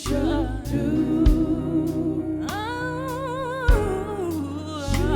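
Gospel song with a singer's voice holding long, wavering notes with vibrato over bass, keyboard chords and occasional drum hits.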